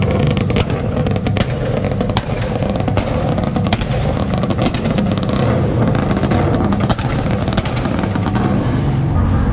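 A car engine running at low revs, with a dense, irregular crackle of sharp pops over the exhaust rumble.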